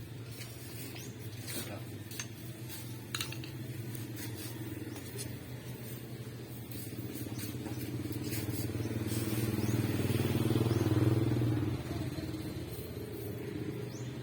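Small 50cc motorbike engine running, swelling louder over a few seconds to a peak and dropping back suddenly about twelve seconds in.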